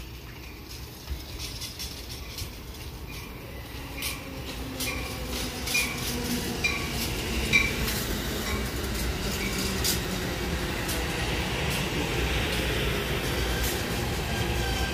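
Amtrak Pacific Surfliner bilevel passenger train rolling past, a steady rumble growing louder, with a run of sharp clicks from the wheels over the rail joints about a third of the way in.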